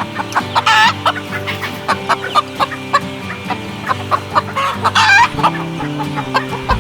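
Hens clucking in quick, repeated short notes, with two louder drawn-out squawks, one about a second in and one about five seconds in. Background music with held notes plays underneath.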